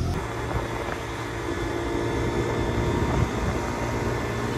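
Motor scooter engine running steadily while riding, a continuous drone with road noise.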